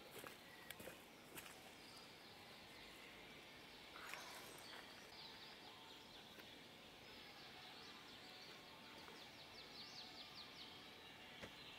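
Faint outdoor quiet with a few light knocks and a scrape of wooden boards being handled in the first seconds. In the second half a small bird gives a fast, high trill.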